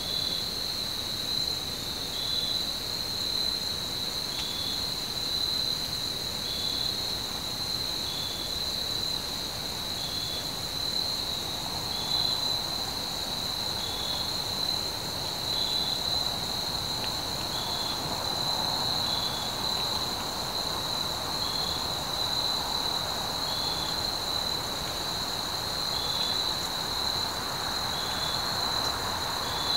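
Steady high-pitched chorus of crickets and other insects in woodland, with one short chirp repeating about every two seconds. A faint rushing noise rises underneath in the second half.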